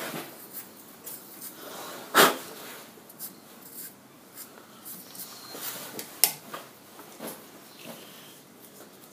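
Handling sounds at a stopped metal lathe: scattered clicks and knocks as hands work at the chuck and the workpiece, with a sharp knock about two seconds in and another about six seconds in.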